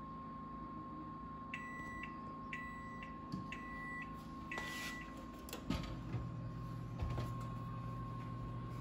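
Electronic oven timer beeping four times, about one beep a second, as its countdown runs out, signalling the bread's bake time is up. A few clunks follow as the oven door is pulled open, and a low hum starts about the same moment.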